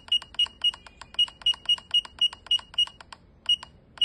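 Key-press beeps from a SATLINK WS-6990 DVB-T modulator as its down button is pressed over and over to scroll a menu list. The short, high-pitched beeps come about four a second, with a brief pause near the end.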